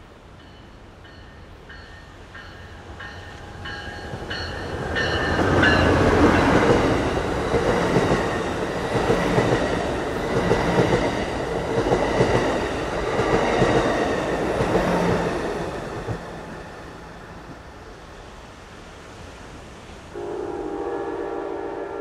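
Passenger train passing close by, with a loud rumble and clatter of wheels on the rails that builds about five seconds in and fades after about sixteen seconds, preceded by an evenly repeated high ringing. Near the end, the train's air horn sounds a single chord lasting a couple of seconds.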